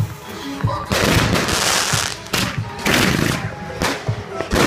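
Consumer aerial fireworks going off: several sharp shots, each followed by a loud hissing, crackling burst, about a second apart.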